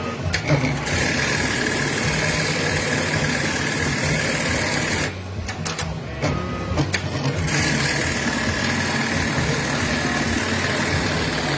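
JUKI AMS-224C computer-controlled pattern sewing machine running its programmed stitch cycle: two runs of fast, steady sewing of about four seconds each, with a few clicks in the pause between them.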